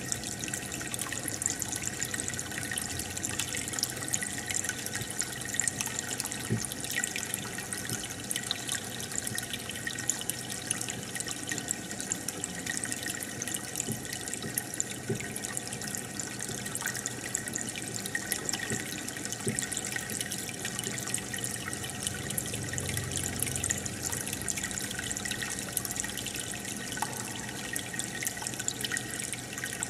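Aquarium aeration: a continuous stream of air bubbles rising through the tank water, a steady bubbling and trickling with fine crackling pops.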